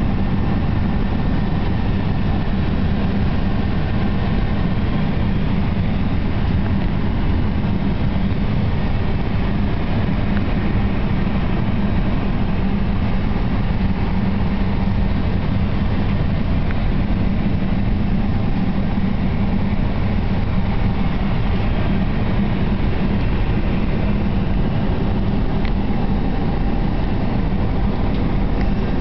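Steady rushing hum inside the cockpit of a parked Airbus A319 airliner: the aircraft's ventilation and equipment noise, unchanging throughout, with a low steady drone under it.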